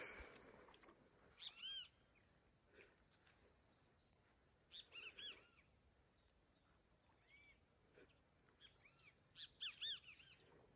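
Faint bird calls: a few scattered clusters of short, arched chirps, the loudest cluster near the end, over a quiet background.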